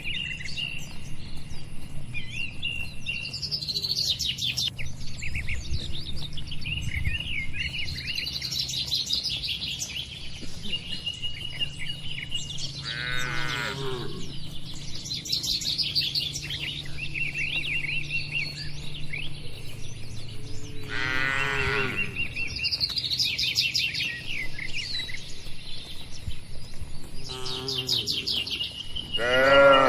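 Cattle mooing three times, each a long falling call, spread over about thirty seconds of birds chirping and twittering, with a thin steady high tone under the birdsong.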